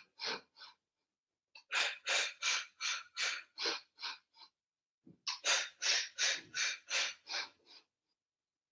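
A woman's short, rhythmic breaths for the Pilates hundred, puffed out about three times a second in runs of about eight with a short pause between runs.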